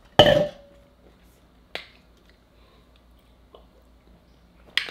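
Sharp plastic clicks and snaps from handling small drink and dropper bottles: a loud snap with a brief ring just after the start, a smaller click a little before two seconds, and another sharp click near the end.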